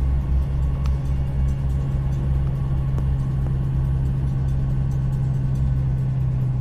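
Car cabin noise while driving: engine and road rumble heard from inside the car, a steady low drone with no change in speed.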